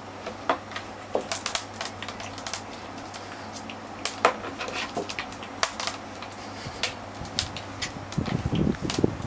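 Irregular sharp clicks and taps, a few a second, over a steady low hum. A denser burst of lower sound comes near the end.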